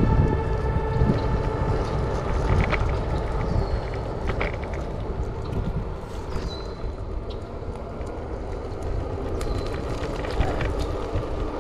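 Wind rushing over the microphone and low road rumble from an UNAGI Model One E350 electric scooter riding at its top speed on asphalt, with a few small clicks and rattles over bumps.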